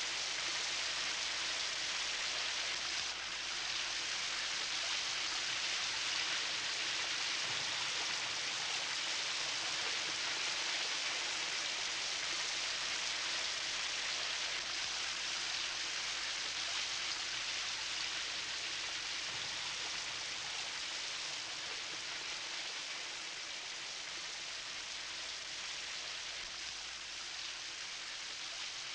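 A shower left running: a steady hiss of water spraying down into a tub, growing slightly fainter over the last third.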